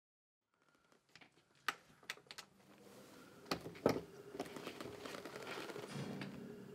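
Portable wind-up gramophone being set up: several sharp clicks and knocks as the tone arm and soundbox are handled. Then a steady hiss with light crackle rises, the steel needle running in the groove of a 78 rpm shellac record just before the music starts.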